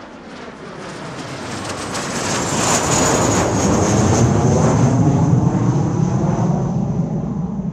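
Formation of Sukhoi Flanker-type twin-engine fighter jets flying past. The jet roar builds to its loudest about four to five seconds in, then eases slightly, while a high whine glides down in pitch as the jets pass.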